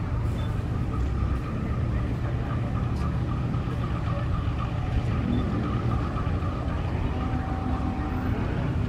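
Diesel locomotive engine running with a steady low hum as the locomotive rolls slowly toward the platform.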